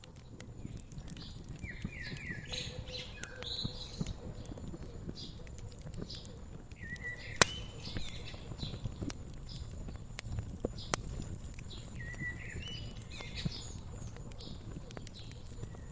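Wood fire crackling and popping with scattered sharp snaps, the loudest about seven seconds in, while songbirds sing short chirping phrases in the background.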